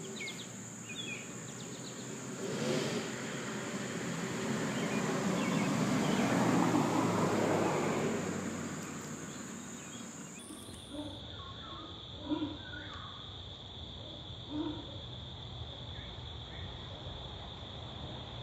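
Outdoor garden ambience: a steady high-pitched insect drone, with a few bird chirps near the start and a broad rushing noise that swells and fades, peaking about six seconds in. About ten seconds in the whole sound drops an octave and turns duller, slowed to half speed, with a couple of soft knocks.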